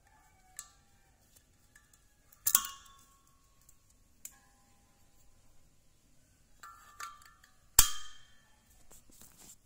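White plastic safety cap of an LPG cylinder valve being worked off and snapped back onto the valve: a series of sharp clicks and knocks, each with a short ringing tone, the loudest about eight seconds in as the cap goes on.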